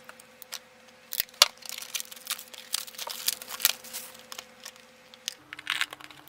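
A puzzle cube's box and packaging being handled and opened by hand: scattered rustling and crinkling with light clicks and taps.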